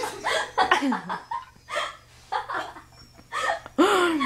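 People laughing in short bursts and making silly vocal noises, with a longer pitched cry near the end that rises then falls.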